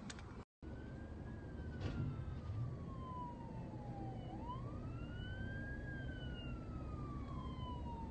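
Police car siren wailing slowly: one long fall in pitch, then a rise and another long fall, over the low rumble of a car's cabin.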